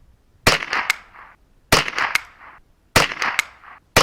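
.22 LR rifle shots from a semi-automatic 10/22-pattern rifle fired in a quick string: three sharp cracks about a second and a quarter apart, each followed by a brief rattle of quick echoes, with a fourth shot right at the end.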